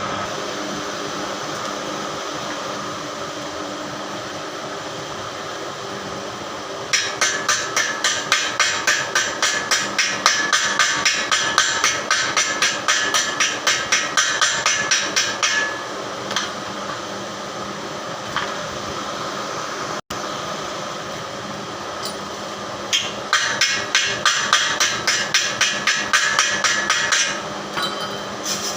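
Hammer blows on metal in rapid, even runs of about four or five strikes a second: one run of roughly eight seconds, then a shorter one near the end. A steady background hum runs underneath and between the runs.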